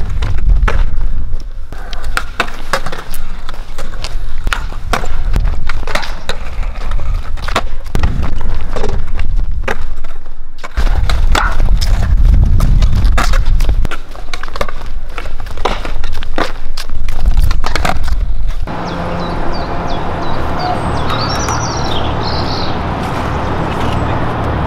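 Skateboards rolling on concrete, with repeated sharp clacks of the boards popping and landing during tricks. About three quarters of the way through this gives way to steady outdoor background noise with faint high chirps.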